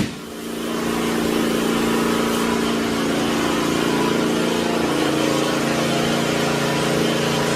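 An engine running steadily at one speed, an even low drone.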